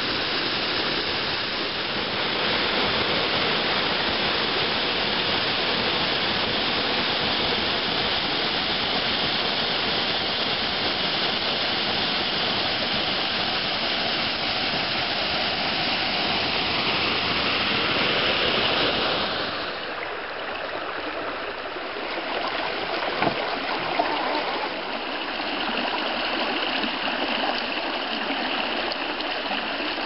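Waterfall pouring onto rocks, a steady full rush of falling water. About two-thirds of the way through it changes to the lighter, thinner rush of a shallow creek running over rocks, with two short clicks a few seconds later.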